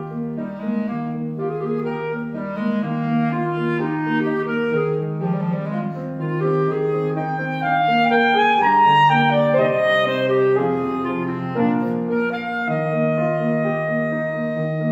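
Solo clarinet playing a lyrical melody of held and moving notes, over a steady piano accompaniment of repeated low notes and chords.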